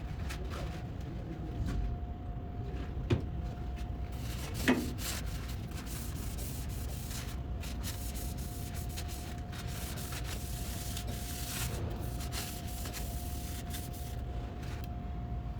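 A rag wiping a surface clean, in stretches of rubbing, with two sharp knocks early on, over a steady background hum.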